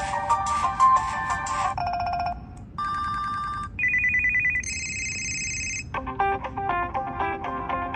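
HTC Rezound phone ringtones played one after another, each cut off after a second or two: a short melody, pulsing beeps, a buzzing trill, high electronic tones, then another melody starting about six seconds in.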